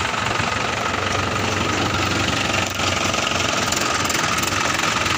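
Farm tractor's diesel engine running steadily at idle.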